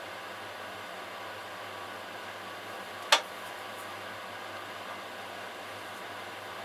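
Steady mechanical hiss, like a motor or fan running, with one sharp click about three seconds in.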